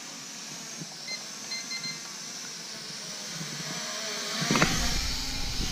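Quadcopter drone's propellers buzzing steadily as it descends low, with a few short electronic beeps about a second in. The sound grows louder about four and a half seconds in, with a low rumble joining the buzz.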